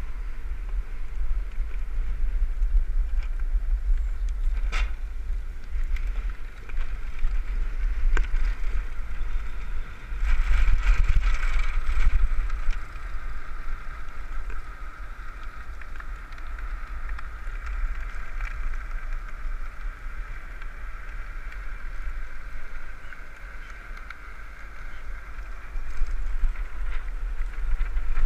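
Wind buffeting the microphone of a land-sailing cart running fast over hard beach sand, with a steady whirring hiss from the cart rolling along that swells for a couple of seconds about ten seconds in. A sharp click about five seconds in.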